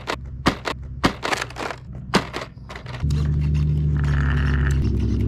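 A 1/18-scale RC crawler truck knocking and clacking several times as it tips and lands on concrete. About three seconds in, background music with a steady bass starts.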